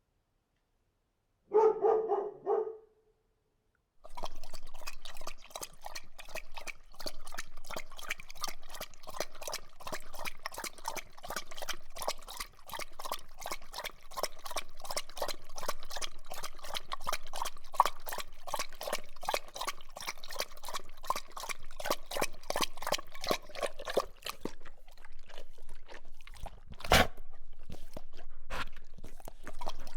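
A single dog bark, then a dog lapping water in a fast, steady rhythm of several laps a second for about twenty seconds. The laps slow and grow sparser near the end, with one louder slosh.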